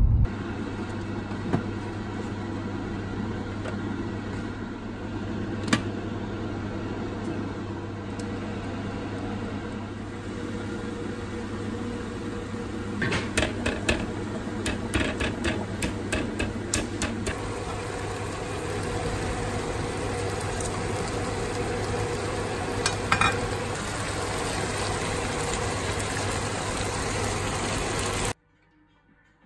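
Steady hiss of water boiling and steaming, with a low hum under it. A run of light clicks and rattles comes around the middle, and a few more near the end.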